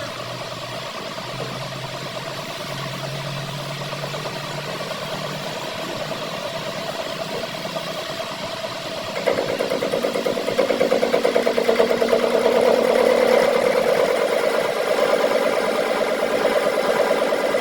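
A metal lathe running steadily. About halfway through it becomes louder, with a fast rhythmic flutter, as cutting begins.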